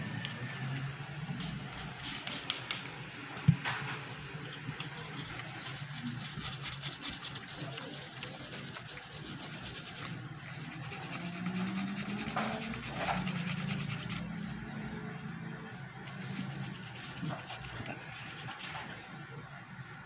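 Scraping and rubbing on a hard surface in long runs of quick strokes, with one sharp click about three and a half seconds in.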